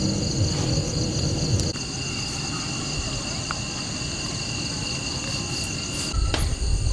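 Insects chirping in a steady, fast-pulsing high trill. A low rumble of noise sits under it for the first couple of seconds and returns near the end.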